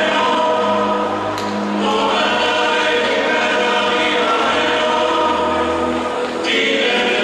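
Choral music playing loud over the arena sound system: a choir singing long held chords that change a few times.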